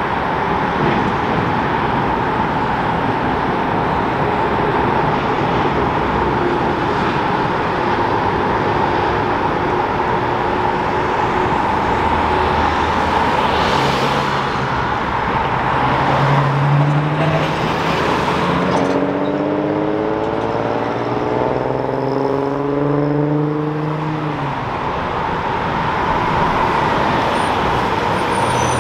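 Road traffic passing close by: cars, a truck and a bus go past over a steady hum. From about 19 to 24 seconds, a vehicle accelerates with a slowly rising engine tone that cuts off.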